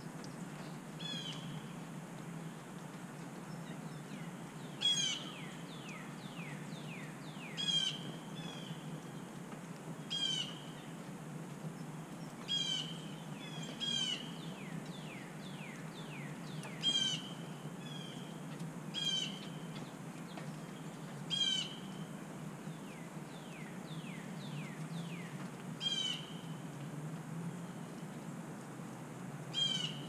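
Wild songbirds calling: a short, bright call repeats about every two to three seconds, with runs of quick falling whistles between, over a steady low hum.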